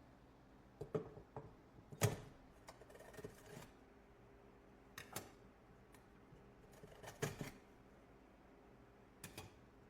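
Thin abrasive cutoff wheels clicking and scraping against steel as they are slid out, one at a time, through the bottom slot of a welded steel-pipe dispenser. There are a handful of sharp clicks a second or two apart, the loudest about two seconds in.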